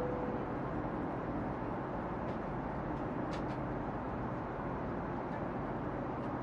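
Steady hiss and rumble of an airliner cabin, with a few faint clicks near the middle.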